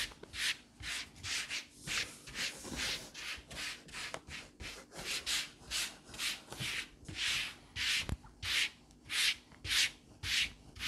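Palms rubbing flour over a thin rolled sheet of fresh pasta dough on a countertop: a steady run of short, dry rubbing strokes, about two to three a second.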